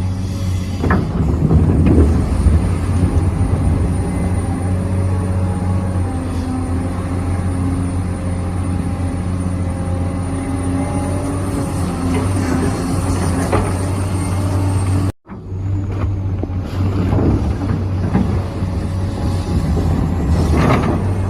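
Remote-controlled model excavator and truck at work: a steady, loud low engine-like hum with some clatter and scraping near the start and again near the end. The sound cuts out for a moment about two-thirds through.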